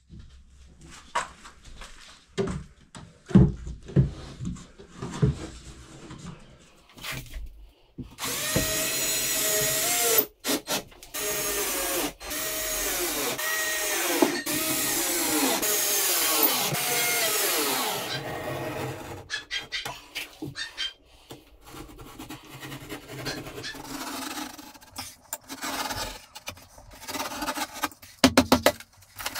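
Knocks and clicks of work on a chipboard cabinet, then a power drill runs for about ten seconds, its motor speed rising and falling as the trigger is worked, with a couple of brief stops. Lighter clicks and handling noises follow.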